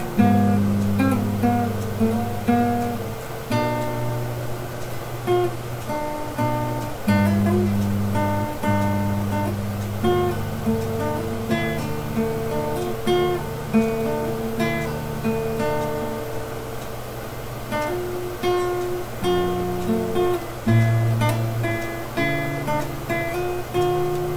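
Acoustic guitar played as an instrumental, with notes picked one after another, ringing and fading over sustained low bass notes.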